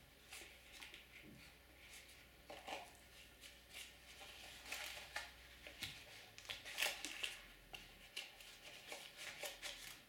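Faint, irregular rustling and light clicks from hands handling a nylon belt sheath with a metal multi-tool and bit set in its pockets.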